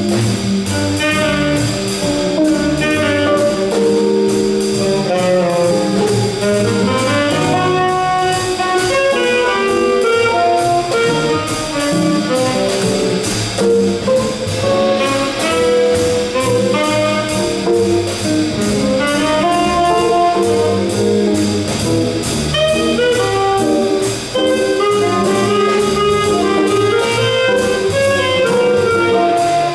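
Small jazz combo playing: saxophone carrying the melody over archtop guitar, upright bass and drum kit, with a steady cymbal beat.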